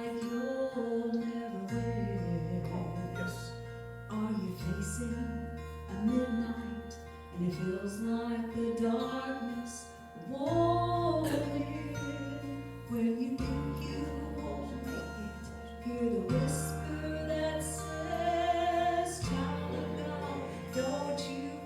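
Instrumental introduction of a gospel song: held bass notes changing every few seconds under a melody line that slides up and down.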